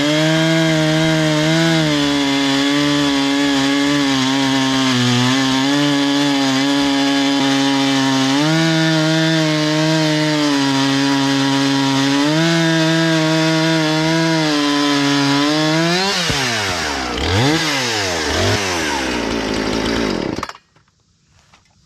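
Husqvarna 460 Rancher 60 cc two-stroke chainsaw running at high revs while cutting poplar, its engine note sagging and recovering as the chain loads up in the wood. About sixteen seconds in, the revs swing up and down quickly several times. The sound stops abruptly about twenty seconds in.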